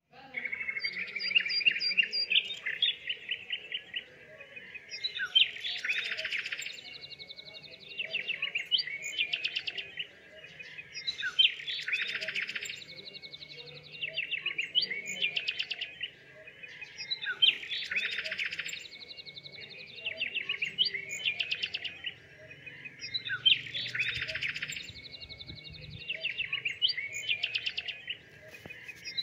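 Small birds chirping and twittering in quick runs, the same burst of song swelling back about every six seconds.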